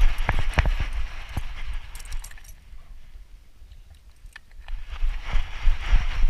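Dog moving with a chest-harness camera mount: rapid knocking and rattling from its footfalls and the loosely strapped, swinging camera mount. It eases off for a couple of seconds in the middle, then picks up again.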